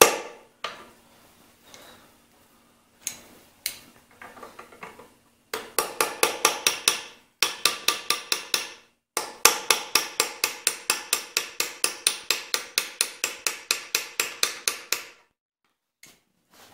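Light, quick hammer taps on a drift held against the bottom of a connecting rod, driving the piston out of a Clinton small-engine block. A few single taps come first, then a short run, then a long even run of about five taps a second that stops near the end.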